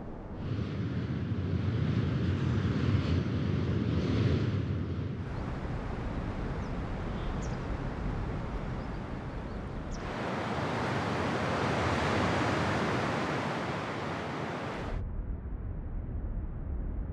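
Wind in a series of separate recordings cut together, each changing abruptly about every five seconds: a gusty wind heavy in low rumble, then a thinner, hissier wind, then a brighter, louder rushing gust, then a duller, lower wind.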